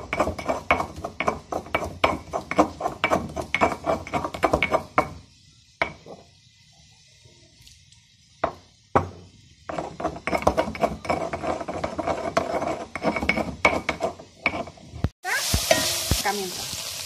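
Stone pestle grinding garlic and spices in a volcanic-stone molcajete: quick gritty scraping and knocking strokes, a pause of a few seconds with a couple of single knocks, then more grinding. Near the end, beef sizzling in a wok over a wood fire while it is stirred.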